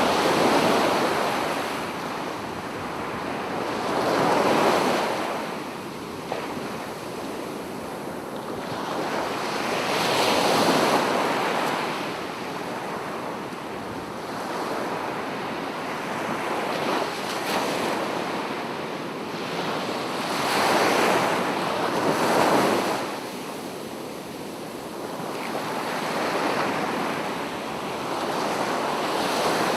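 Ocean surf: waves breaking one after another every few seconds, each a rush of noise that swells and fades.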